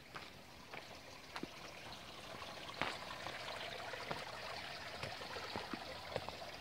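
Faint running water of a small creek, with scattered sharp crackles and snaps of dry twigs and leaf litter as someone picks their way through brush.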